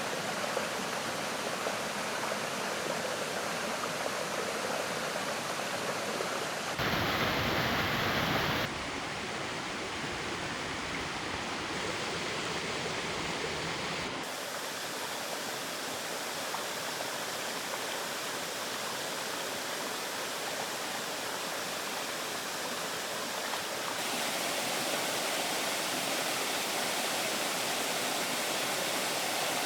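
Steady rushing of running water, a continuous hiss whose loudness and tone jump abruptly a few times.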